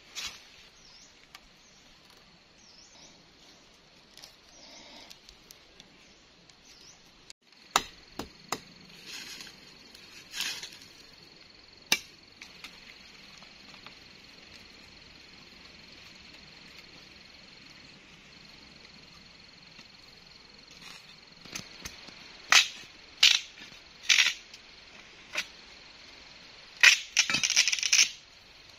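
Wooden poles knocking and clattering as they are handled: scattered sharp knocks about eight seconds in, then a quicker run of knocks in the last few seconds ending in a short scraping rustle.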